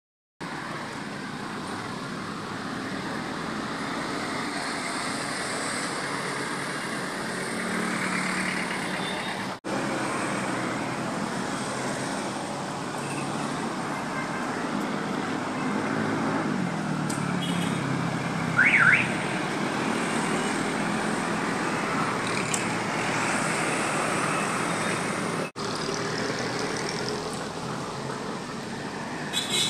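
Traffic on a busy multi-lane road: buses, jeepneys and cars driving past with a steady wash of engine and tyre noise. A short high-pitched beep comes about two-thirds of the way through, and the sound drops out for an instant twice where the footage is cut.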